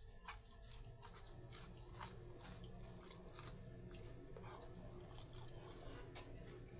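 Faint chewing of crispy fried chicken, with soft, irregular crunches.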